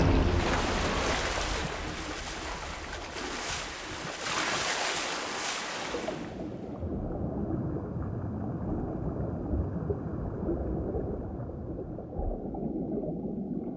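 Water splashing and churning at the surface in several surges as a tiger shark attacks a sea turtle. About six and a half seconds in it cuts to a muffled underwater rumble.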